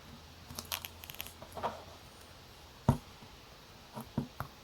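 Light metallic clicks and taps from small tools and tiny clock parts as taper pins are set back into a travel alarm clock movement. There is a loose run of small clicks, one sharper click about three seconds in, and three quick ticks near the end.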